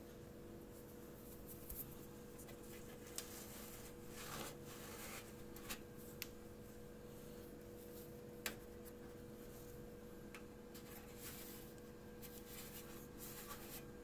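Faint handling noise: scattered light rubs and sharp clicks over a steady low hum, the loudest click about eight and a half seconds in.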